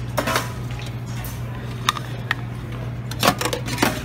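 Metal serving tongs clinking and scraping against a steel steam-table pan while serving greens, in a few separate clinks with the loudest cluster near the end. A steady low hum runs underneath.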